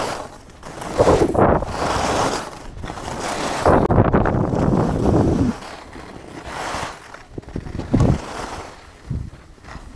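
Skis carving and scraping across groomed snow in a run of turns, each turn a surge of hissing scrape, with wind buffeting the action camera's microphone. The scraping eases off after the middle, with one more short scrape near the end.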